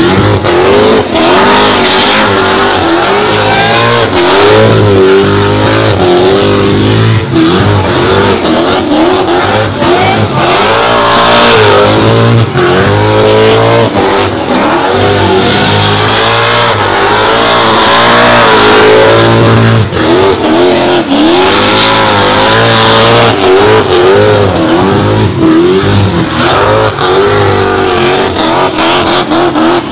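A car doing a burnout: the engine is held at high revs, its pitch swinging up and down constantly, over the steady noise of the spinning tyres.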